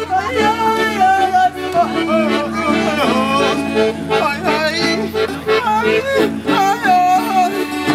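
A man singing a sliding, wavering melody over a piano accordion holding steady chords, with an acoustic guitar, played live.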